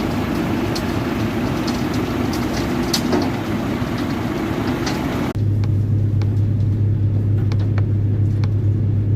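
Heavy machine with a one-metre road planer running loudly: a dense grinding noise with scattered sharp clicks. About five seconds in, the sound changes abruptly to a steady, deep engine drone.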